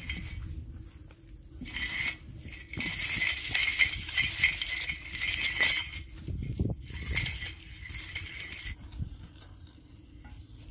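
Metal clinking and rattling of the chain pulley block and its hook hanging from the steel-pipe boring tripod, busiest a couple of seconds in and dying down before the end.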